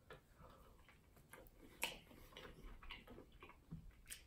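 Near silence broken by faint, irregular mouth clicks of someone chewing a bite of a rib sandwich, one slightly louder just under two seconds in.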